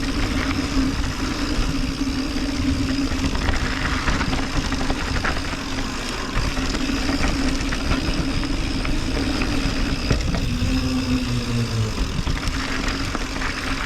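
Mountain bike rolling on a dirt trail: steady tyre and wind noise with a constant mechanical hum and scattered clicks and rattles. The hum dips lower for about a second near the end.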